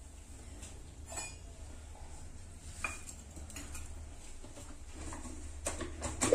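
Steel kitchen utensils and vessels clinking and knocking now and then, the loudest clatter near the end, over a steady low hum.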